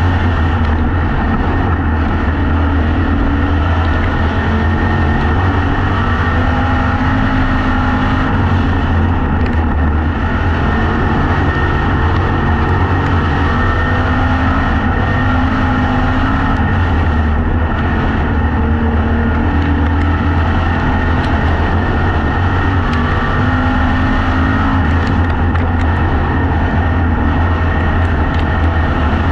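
Factory Stock dirt-track race car's engine running hard under racing load, heard from inside the cockpit. It is loud and steady, with the pitch rising and falling a little every few seconds.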